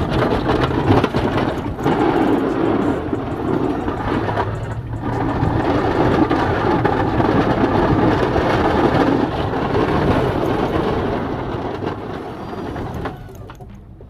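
Pickup snow plow truck driving while its blade pushes snow: a steady rushing scrape over the engine's low drone, dipping briefly about five seconds in and falling away about a second before the end.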